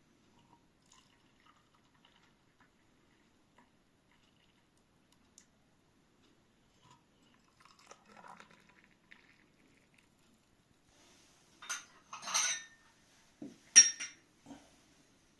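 Mostly quiet with faint small clicks, then a handful of sharp clinks and clatters of dishes and cutlery near the end, one louder than the rest.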